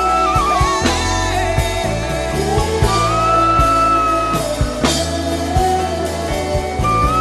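Wordless humming of a slow worship melody, its long notes sliding from pitch to pitch over a backing of bass and drums.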